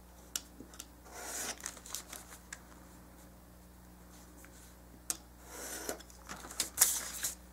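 Card stock being scored: a few short scraping strokes of a scoring tool drawn along a straight edge, with soft paper handling and clicks, busiest near the end.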